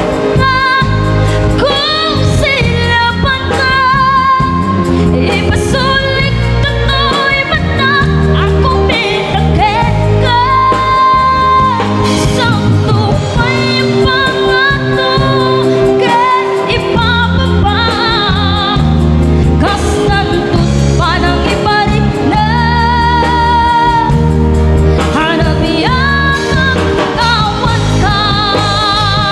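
Live band playing an Ilocano pop song: a woman singing lead into a microphone, with wavering held notes, over drums, bass and guitar.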